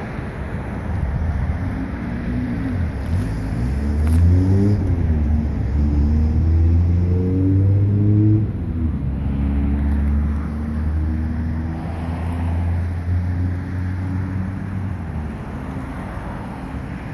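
Car engine revved a few times, climbing and falling in pitch, then held up at higher revs before dropping back about halfway through to a steady lower run that fades near the end.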